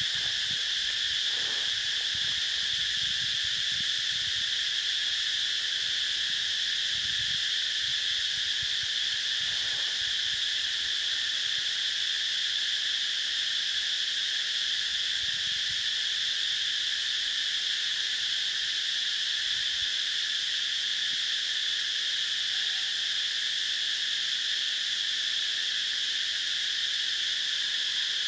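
Insect chorus droning steadily at a high pitch, unbroken and unchanging in level.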